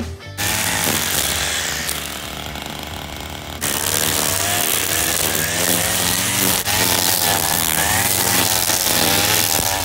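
Stihl string trimmer running and cutting grass, its engine pitch rising and falling as it is throttled. It gets louder a little over a third of the way in.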